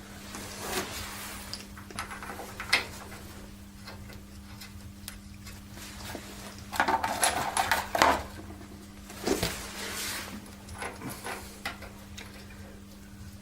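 Metal tools and tractor parts clinking and knocking as they are handled, in scattered taps with a busier cluster about seven to nine seconds in, over a faint steady hum.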